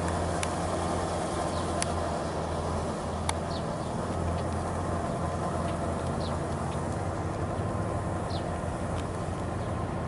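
Kubota L4508 tractor's 45-horsepower diesel engine running steadily under load as it tills a flooded paddy on cage wheels, a constant low drone with no change in pace.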